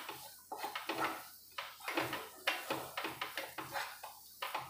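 Flat spatula scraping and stirring a thick coconut and milk-powder mithai mixture around a kadhai, in quick repeated strokes about two to three a second.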